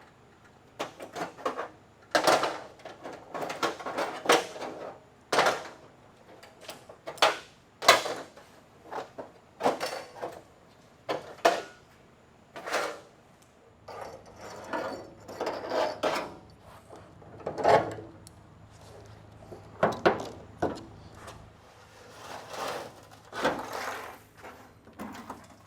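Irregular knocks, clanks and rattles of hand work on an old steel car trunk lid, with a scraping, rattling stretch in the middle. Rust is being shaken loose from inside the panel.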